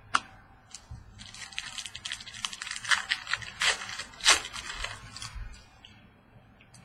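Trading cards and plastic being handled: crinkling and rustling with many sharp clicks for about four seconds, then quiet handling.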